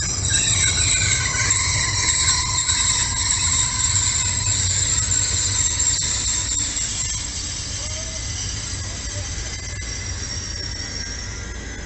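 Double-deck TER Hauts-de-France multiple unit running slowly through the station with a high metallic squeal of several steady tones over a low rumble. The squeal eases a little in the last few seconds.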